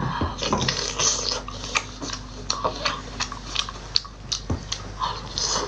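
Close-up chewing and biting of whole octopus: wet, sticky mouth sounds with many quick smacks and clicks as the rubbery flesh is bitten and chewed.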